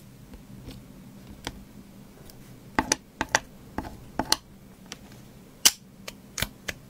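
Light, sharp clicks and taps at irregular intervals as tweezers and fingers place paper cut-outs onto a clear acrylic card panel with magnet studs; the loudest click comes a little over a second before the end.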